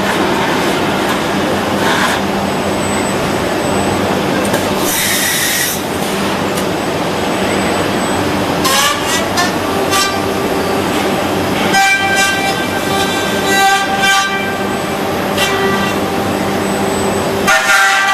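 Industrial robot trimming a plastic car dashboard: steady, loud machine noise from the cutting tool. A pitched whine with several overtones comes in about halfway and wavers on and off, and there is a brief high hiss around five seconds in.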